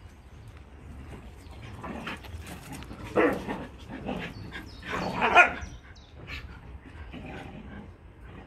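Dogs playing rough together, giving short play barks in scattered bursts, the loudest a little after three seconds and around five seconds in.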